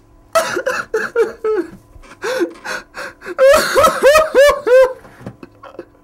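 A man sobbing: short gasping sobs at first, then about three and a half seconds in, a string of five loud wailing sobs, each rising and falling in pitch.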